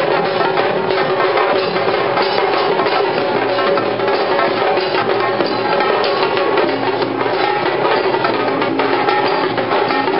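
Tassa drum ensemble playing a fast, dense rhythm without a break: stick-played tassa drums over the beat of large rope-tensioned bass drums.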